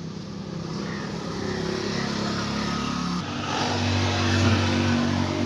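Air-cooled single-cylinder Honda motorcycle engine running steadily. About three seconds in its note changes and it gets louder as the revs rise.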